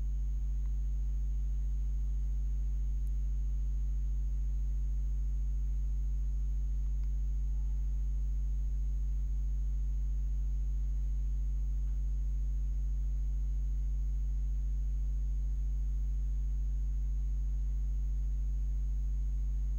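Steady low electrical hum, with a faint high-pitched whine above it.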